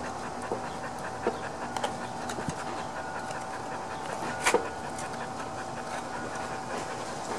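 Plastic clicks and knocks from the air filter housing of a Honda lawn mower engine being worked loose by hand, with a sharp double snap about four and a half seconds in as it comes free.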